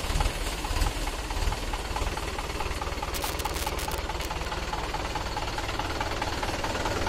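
Mahindra tractor's diesel engine idling steadily, a low rumble with a regular light ticking clatter. A brief hiss about three seconds in.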